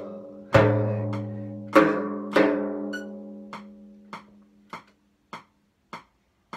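Bendir frame drum struck: a few deep düm strokes ring out low and die away slowly, then a row of short, light ticks follows, evenly spaced a little over half a second apart, and stops near the end.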